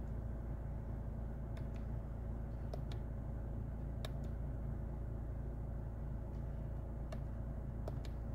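Volkswagen 2.0 TDI four-cylinder turbodiesel idling steadily, heard from inside the cabin as a low hum, with a faint steady whine above it. A few light, sharp clicks come at irregular moments.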